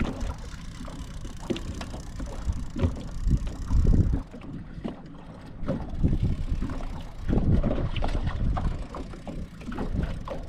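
Wind buffeting the microphone in uneven low surges, with scattered small knocks and clicks.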